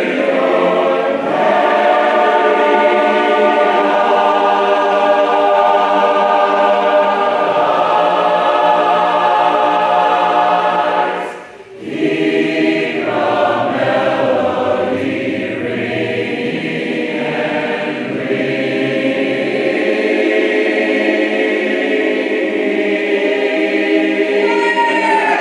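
A large group of voices, the chorus on stage with the arm-linked audience joining in, singing a slow song together in held chords; the singing breaks off briefly about halfway through, then goes on.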